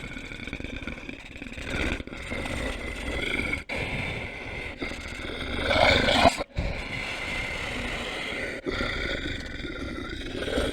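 Werewolf growl sound effect: a run of rough, drawn-out growls broken by brief pauses, the loudest swelling up about six seconds in.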